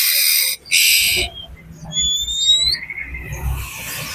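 Oriental magpie-robin (kacer) in an agitated state, giving two harsh, rasping scolding calls in quick succession, then a single whistled note that rises in pitch about two seconds in.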